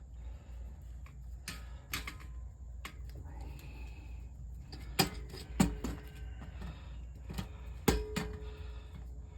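Scattered clicks and knocks of hands and tools working on metal parts, with loud sharp metallic clinks about five and eight seconds in that ring briefly.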